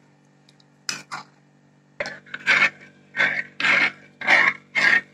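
A metal spoon stirring starch slurry in a ceramic bowl: two light clinks, then steady rhythmic scraping strokes against the bowl's bottom, about one and a half a second.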